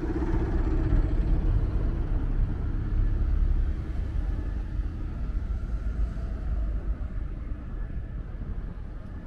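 Road traffic rumble, loudest in the first four seconds and then easing a little.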